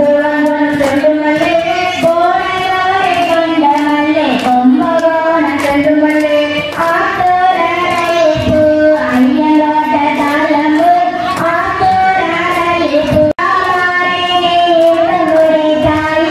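High female voice singing a devotional song over a light, regular beat of claps, with a brief break in the sound about thirteen seconds in.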